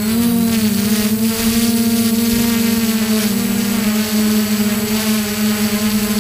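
Multirotor drone's propellers buzzing steadily overhead of the microphone, a loud even drone whose pitch wavers slightly now and then.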